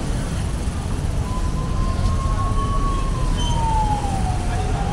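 A siren wailing slowly: one tone comes in about a second in, holds, then falls and rises again. Under it, the steady rumble of city street traffic.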